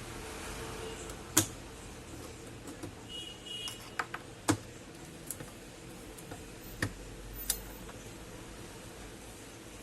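Scattered sharp clicks and taps, about half a dozen spread out irregularly, like small tools or parts being handled on a workbench. A brief high beep comes about three seconds in.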